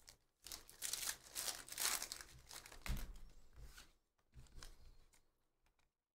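Panini Prizm football hobby pack being torn open, its wrapper crinkling and tearing for about three seconds, followed by a few softer rustles as the cards are handled.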